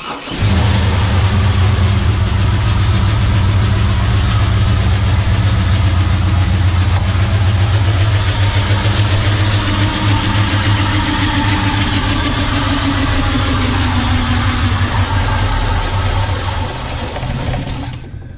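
A Holden engine in a Commodore fires up at once and runs loud and steady, with the clatter of its camshaft gear drive, then gets quieter near the end.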